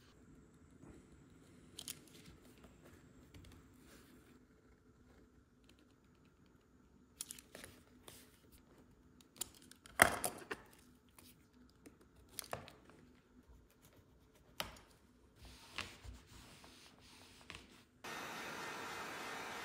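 Hands handling a newly leather-wrapped steering wheel: masking tape and leather crinkle and tear, with scattered sharp clicks, the loudest about halfway. Near the end a steady hiss starts suddenly, from a handheld steamer.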